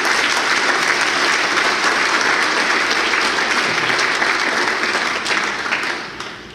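Audience of a seated hall applauding steadily, the clapping dying away about six seconds in.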